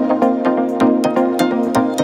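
Background music with a steady beat over sustained tones.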